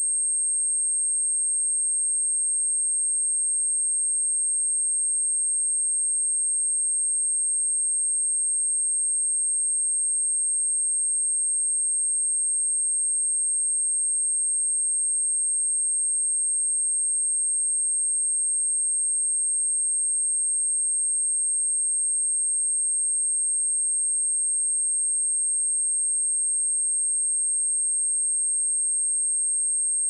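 A pure 8471 Hz sine-wave test tone, a single steady high-pitched whine held at a constant level throughout.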